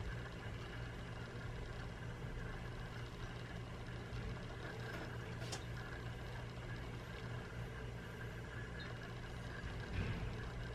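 A steady low hum, with a single light click about five and a half seconds in and a brief soft bump near the end.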